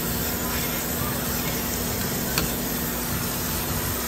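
Storm Vulcan 15AW crankshaft grinder running with a steady hum while its coolant sprays and splashes over the spinning crankshaft in a steady hiss. A single sharp click a little past halfway.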